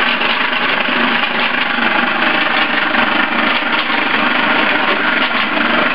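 Forge air blower running steadily, a loud, even whir that drives air into the coke fire to bring the steel up to heat.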